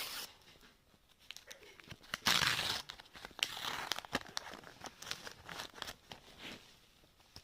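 A trading-card pack being torn open and its wrapper crinkled, with the cards rustling and clicking as they are handled. The loudest tearing comes about two seconds in.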